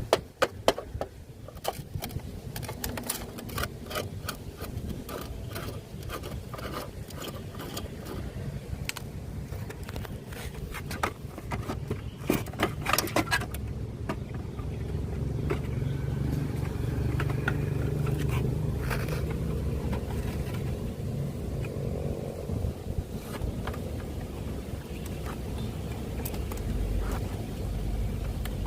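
Rapid clicks, taps and scraping from hands working on a cassette player's parts, coming thick for about the first half. Then a low steady hum with fewer clicks.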